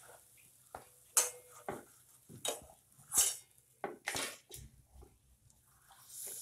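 Metal spoon and slotted skimmer clinking and scraping against a metal kadhai while turning and lifting fried pooris from the oil, about eight irregular knocks and scrapes.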